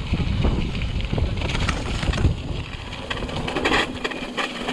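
Mountain bike riding over a dirt road: wind rumbling on the microphone, tyres on the loose surface and the bike rattling, with a short scraping hiss about three and a half seconds in.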